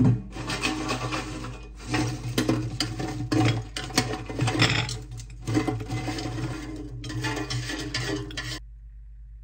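Crispy air-fried breaded chicken pieces clattering and scraping against the air fryer basket's grate and being pushed out with chopsticks into a ceramic dish: a run of dry scrapes, clicks and crunchy rustles that stops suddenly near the end. A steady low hum lies underneath throughout.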